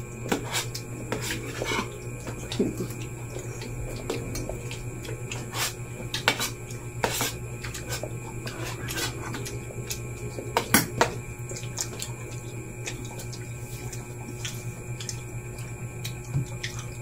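Scattered light clinks and taps of spoons against an aluminium baking tray as people eat from it, over a steady low electrical hum.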